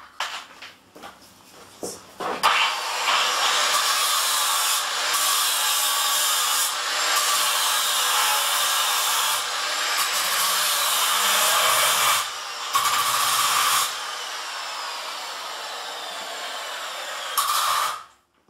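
A power tool running with a harsh, hissing noise, broken by a few short stops. It turns quieter near the end and cuts off suddenly. A few clicks and knocks come before it starts.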